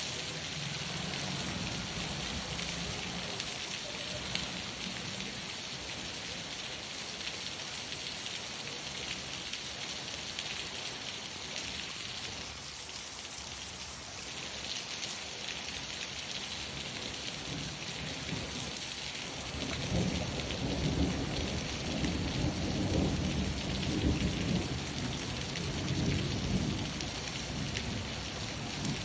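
Steady rain falling, with a long, low rumble of thunder rolling through about two-thirds of the way in.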